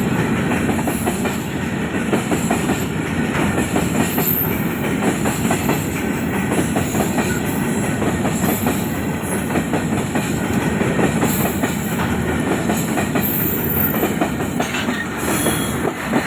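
Long freight train rolling past, its wagons' wheels giving a steady run of dense clicks and clatter over the rails, with a few brief high-pitched squeals.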